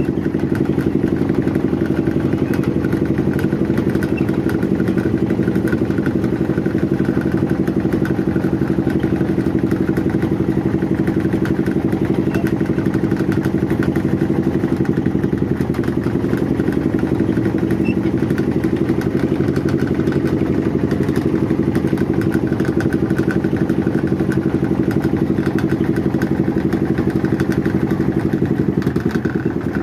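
An engine running steadily at an even speed: a continuous drone whose pitch holds level, neither revving up nor slowing.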